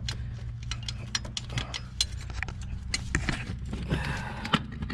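Scattered light metallic clicks and clinks of a metal wiring-harness bracket being worked up off the fuel-rail studs on a Ford 460 V8's intake, where it catches on the wiring harness.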